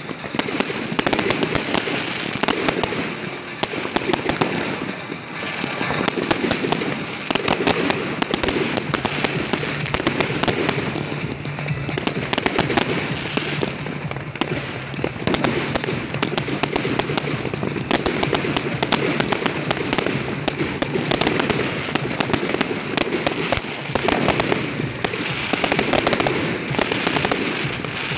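Aerial fireworks display: a dense, unbroken barrage of bangs and crackling from bursting shells.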